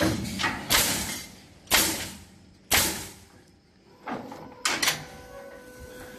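Pneumatic coil nail guns on an automatic pallet block nailing machine firing. Each shot is a sharp crack trailing off into a short hiss: three loud shots about a second apart, then a few weaker ones over a steady machine hum.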